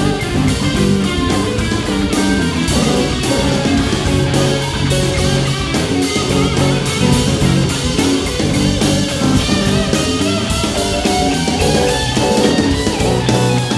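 Live band playing an instrumental passage: electric guitar lines over the full band, with a steady, driving beat throughout.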